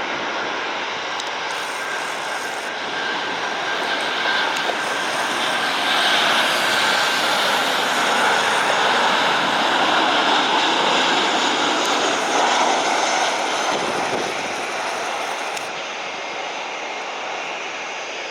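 Boeing 737-800 jet engines at takeoff thrust: a broad jet roar that swells, holds loudest in the middle, then fades as the plane passes and climbs away.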